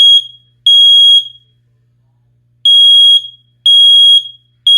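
Kidde i9030 ionization smoke alarm sounding on test, showing it works: loud, piercing beeps in the temporal-three pattern. The end of one group of three beeps, a pause of about a second and a half, then the next three half-second beeps a second apart.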